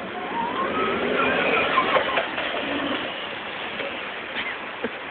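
Forklift engine running, with a few sharp knocks around two seconds in.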